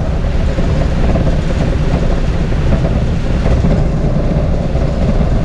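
Steady low rumble of a moving bus, engine and road noise heard from inside the cabin.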